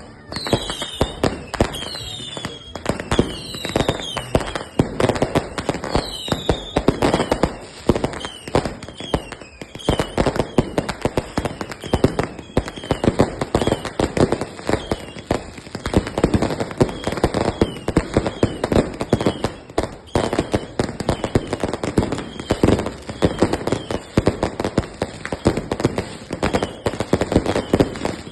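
New Year fireworks going off in a dense, unbroken barrage of bangs and crackles, with short falling whistles over them, most of all in the first ten seconds.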